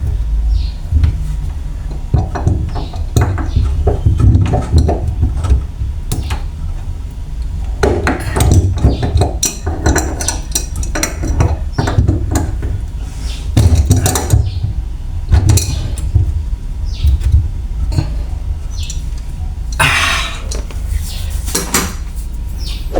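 Irregular clinks, knocks and clatter of metal faucet fittings and tools being handled while a faucet supply hose is connected under a kitchen sink, over a constant low rumble.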